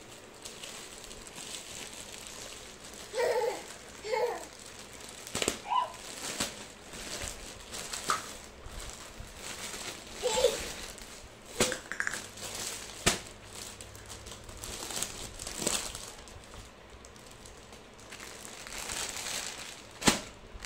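Plastic courier mailer bag crinkling and crackling as it is handled and pulled open, with irregular sharp crackles.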